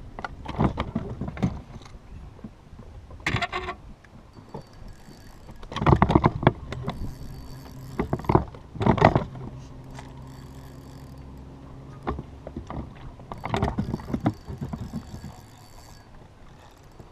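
Bursts of clattering and knocking from a spinning rod and reel being worked as a hooked fish is reeled in, loudest about six and nine seconds in. A faint low hum runs underneath.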